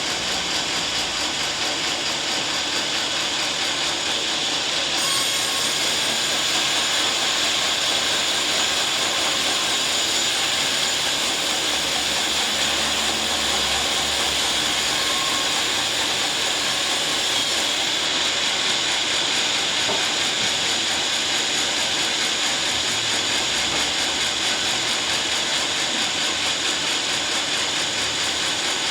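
Sawmill saw cutting lengthwise through a teak log, a steady high-pitched machine noise of blade in wood.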